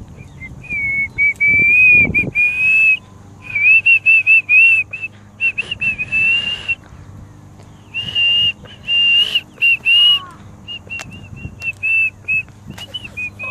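A person whistling a tune: a clear, wavering whistle in short phrases of quick and held notes with gaps between them.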